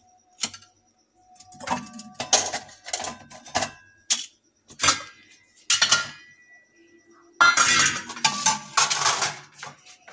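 Washed stainless-steel bowls, plates, cups and pots clinking and clattering as they are set down and stacked away, some pieces ringing briefly after a knock. The clatter comes in scattered bursts and is busiest near the end.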